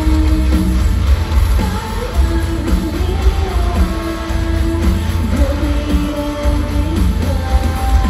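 Live band playing loud pop-rock with a woman singing long held notes over a heavy bass, as heard from the seats of an arena.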